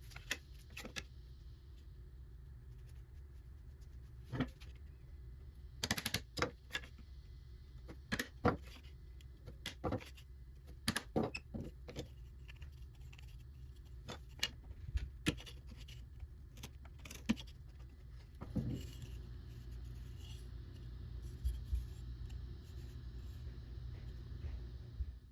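Irregular sharp clicks and taps, a couple of dozen of them, some in quick clusters, over a steady low hum.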